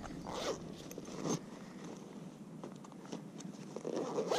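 A fabric backpack being handled and rustled, with short swishes of cloth and straps: one about half a second in, another a little over a second in, and a longer one near the end.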